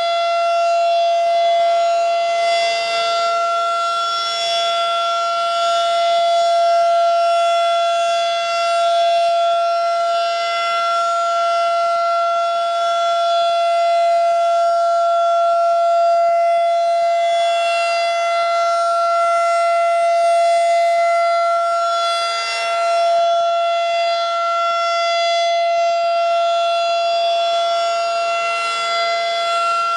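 Federal Signal 2001-SRN rotating civil defense siren sounding during a siren test. It holds one steady high tone that gently swells and fades in loudness as the rotating horn turns.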